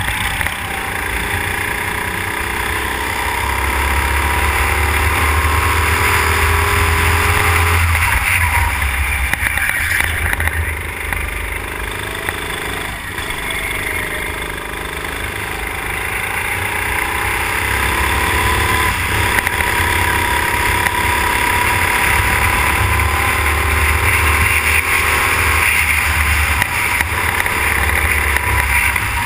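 Go-kart engine running at race pace, heard from on board, its pitch climbing steadily along the straights and falling away several times as the throttle is lifted for corners.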